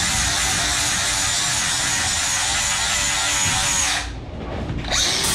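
Handheld angle grinder with a 40-grit flap disc grinding down welds on a steel bearing assembly held in a vise: a steady high whine with grinding noise. About four seconds in the sound drops away for under a second as the disc comes off the work, then the grinding resumes.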